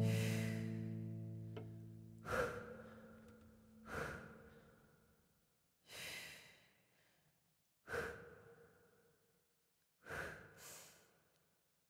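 A plucked cello chord rings and fades away over the first two seconds. It is followed by slow, audible breaths, one about every two seconds, with two close together near the end.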